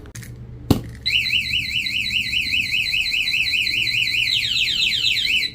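A single knock on the motorcycle, then its aftermarket anti-theft alarm siren going off: a loud, high-pitched warble sweeping rapidly up and down, about four times a second, triggered by the bump while the bike is locked.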